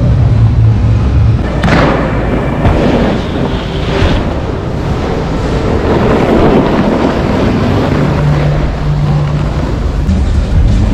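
Steady rushing wind noise on the microphone mixed with a snowboard sliding and scraping over snow while riding downhill, with a sharper edge scrape about two seconds in.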